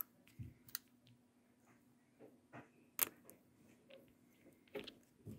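A few faint, separate clicks and taps of fingers handling a disassembled smartphone's frame, board and ribbon-cable connector. The sharpest click comes about three seconds in.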